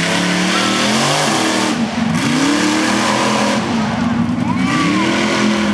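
Mud-bog truck engine revving hard in the mud pit, its pitch dipping and climbing again several times as the driver works the throttle, over a constant wash of noise from spinning tyres and churned mud.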